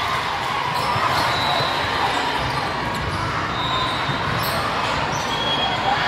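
Echoing gymnasium ambience during a volleyball match: balls being hit and bouncing on the court over a steady hubbub of players and spectators.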